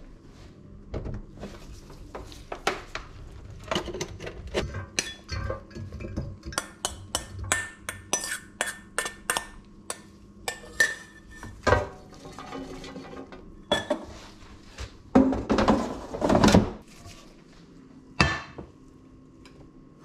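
Kitchen clatter: a metal spoon clinking and scraping against a stainless steel mixing bowl as it is scraped out, mixed with knocks from handling an air fryer basket. A longer, louder clatter comes near the end, then one more knock.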